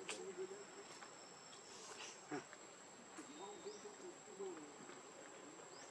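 Faint, steady high-pitched insect buzz, with faint wavering calls or voices at times and a few short chirps.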